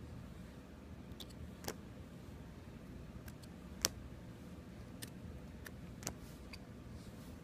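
A few sharp clicks and taps of hard plastic card slabs being handled, the loudest about four seconds in, over the steady low hum of a room heater running.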